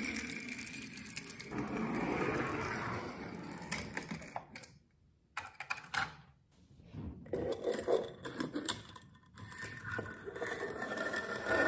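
Small die-cast toy cars rolled by hand across a wooden floor, their little wheels rattling along. About midway there are a few sharp plastic clicks as a car is slid into the shelf of a plastic car-carrier truck, and then the rolling starts again.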